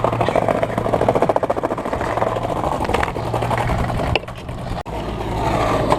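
Skateboard wheels rolling over rough pavement: a fast, steady rattle that eases off about four seconds in.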